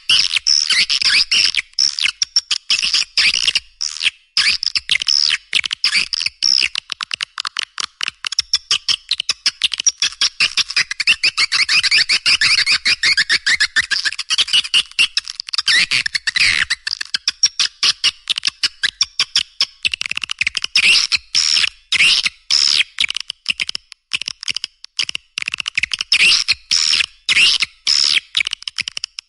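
A swiftlet lure-call recording of the kind played in swiftlet farming: a dense, continuous stream of rapid, high-pitched swiftlet chirps and twittering clicks, with no bass at all.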